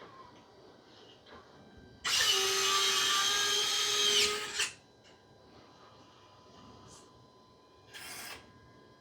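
A small electric motor whirs at a steady pitch for about two and a half seconds, starting about two seconds in and cutting off suddenly. A short burst of noise follows near the end.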